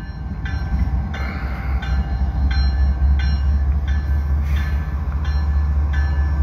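Diesel engines of slowly approaching CP GE ES44AC locomotives rumbling, growing louder as they near. Over the rumble the locomotive bell rings steadily, about one and a half strokes a second.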